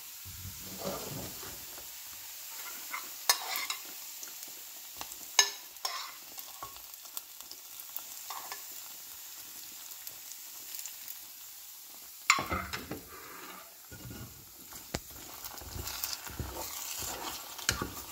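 Hot oil tempering of fried onions, dried chillies and curry leaves being scraped from a frying pan into a pot of coconut-milk cassava curry, with a light sizzle and a few sharp spoon knocks against the pans. Near the end, a wooden spoon stirs the thick curry.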